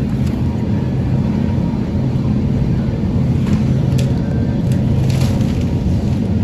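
Steady low background hum with a few faint clicks and rustles.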